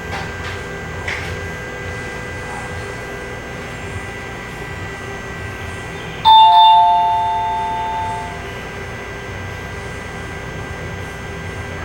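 A two-note doorbell-style chime rings once about six seconds in and fades away over about two seconds, over a steady hum with faint high tones.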